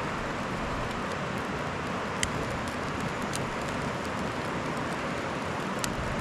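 Steady rushing of a creek, with a few sharp pops from a small campfire of sticks catching, lit with gel fire starter.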